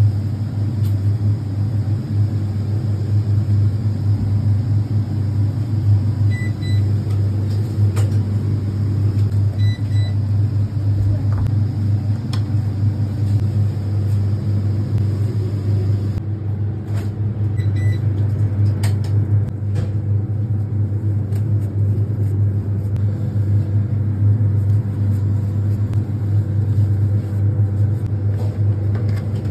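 Steady low machine hum of running kitchen equipment, with a few short high beeps about a third of the way in and again a little past the middle.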